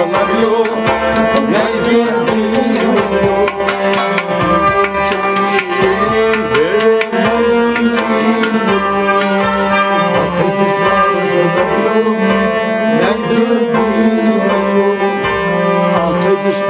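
A man singing a Kashmiri Sufi kalam over hand-drum percussion and steady, held instrumental notes.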